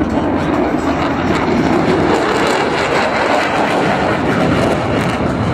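Military jet flying past low, its engine noise a loud, steady rush.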